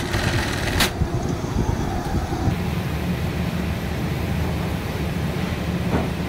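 Industrial sewing machine running steadily, with a sharp click about a second in. About two and a half seconds in the sound changes abruptly to a steady low machine hum.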